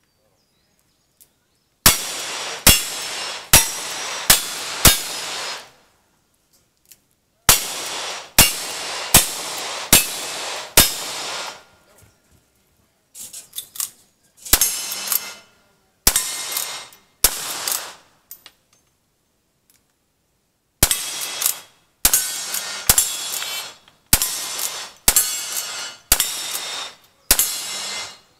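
Cowboy action shooting stage: about twenty gunshots, including a lever-action rifle, fired in quick strings of four to eight shots a little under a second apart, with pauses of a few seconds between strings. Each report is followed by a short ringing clang.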